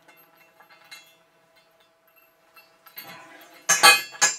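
A wheel and metal washer being fitted onto a steel axle bar, clinking metal on metal: faint light clicks at first, then a louder rattle about three seconds in and two sharp clinks near the end.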